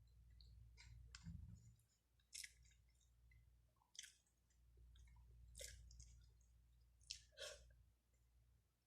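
Faint mouth sounds of someone eating: soft wet clicks and smacks of chewing, several short ones spaced a second or so apart, over a faint low hum.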